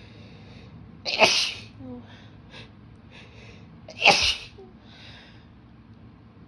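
A woman sneezing twice, about three seconds apart, each sneeze a sudden loud burst, with short quieter breaths between them.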